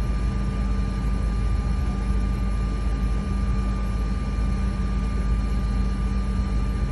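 Steady drone of airport apron machinery: a low hum with a thin, unchanging whine above it.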